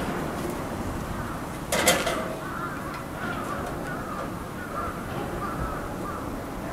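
Bonnet bus engine being hand-cranked with a starting handle at the front, with one sharp knock about two seconds in. Short, repeated caw-like calls follow through the rest.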